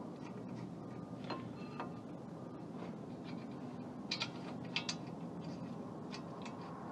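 Light metallic clicks and taps of brake caliper bolts being fitted and threaded into a car's front brake caliper by hand. There are a few scattered clicks, with a small cluster about four seconds in.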